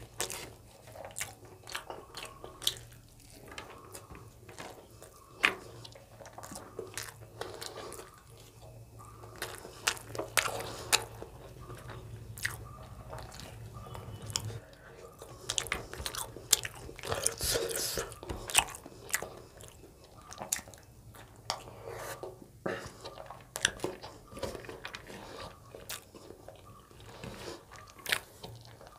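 Close-miked chewing and biting of a mouthful of rice and chicken curry eaten by hand, with many irregular sharp wet mouth clicks and small crunches. A faint low hum stops about halfway through.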